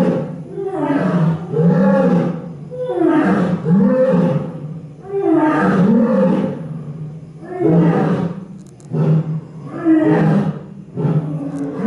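Lioness roaring: a bout of loud, repeated calls, each rising and falling in pitch, coming about once every second or so.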